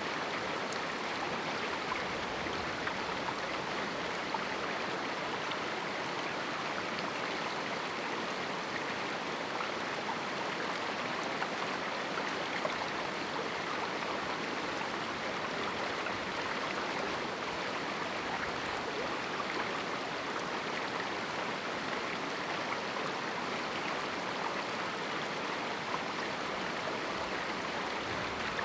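A river flowing through a small canyon: a steady rush of running water over rocks, even and unbroken, with small splashes now and then.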